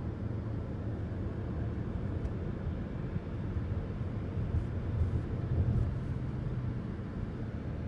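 Steady low rumble of tyre and engine noise heard inside a moving car, swelling slightly about five seconds in.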